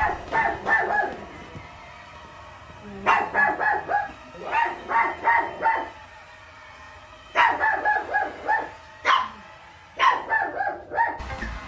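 Small dog barking in four rapid volleys of several sharp, high yaps each, with pauses of a second or two between volleys.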